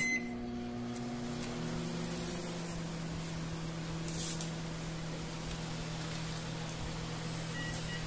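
Philco microwave oven with its outer cover off, started with a short keypad beep and running a test heat on a cup of water with a steady electrical hum; a deeper hum joins about a second and a half in. It is the first run after its burnt-out magnetron was replaced with a new Galanz one.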